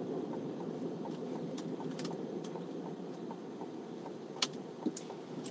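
Steady road and engine noise heard inside the cab of a 2023 Chevy Colorado ZR2 pickup driving on city streets, with a few faint clicks near the end.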